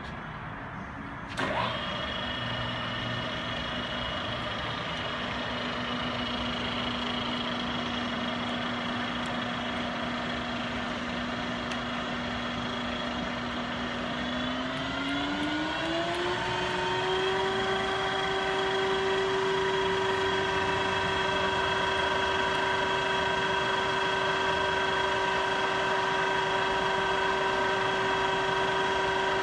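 Sharp LMV-50 vertical milling machine's spindle drive running under power. A click about a second in is followed by a steady whine. About halfway through, the whine glides smoothly up to a higher pitch and holds there as the spindle speed is raised.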